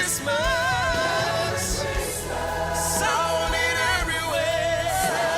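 Gospel choir singing with vibrato over band accompaniment with a steady bass beat.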